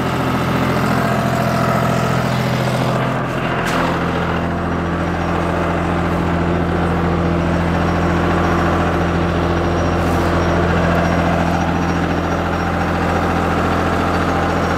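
John Deere tractor's diesel engine running steadily at about 1700–1800 rpm with the PTO engaged, giving a constant low hum; the tone shifts slightly once, about three and a half seconds in.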